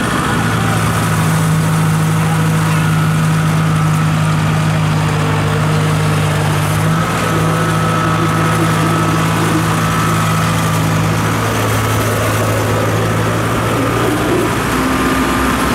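Rice combine harvester's diesel engine running steadily at an even pitch.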